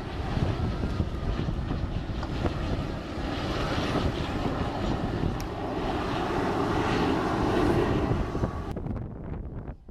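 Jet noise from a U.S. Navy F/A-18F Super Hornet's twin General Electric F414 turbofan engines as it flies past: a dense rushing roar that swells to its loudest about seven to eight seconds in, then drops away sharply near the end.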